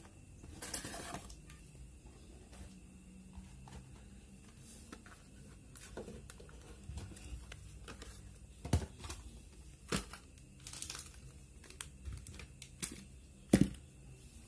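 Cardboard boxes and packaging being handled: rustling, then several light knocks as boxes are set down on a tiled floor, the loudest near the end.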